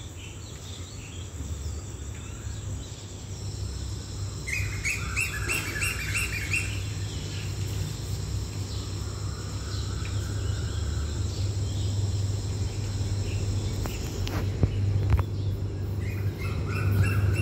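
Birds chirping in quick repeated runs, twice, over a steady high insect trill. Under them a low drone grows steadily louder: the commuter train's engine approaching the station.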